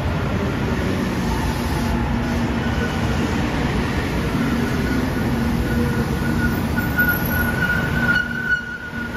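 A JR Shikoku 8000 series electric limited express running into the station alongside the platform, its wheels rumbling on the rails. A thin high squeal rides over the rumble and grows stronger near the end.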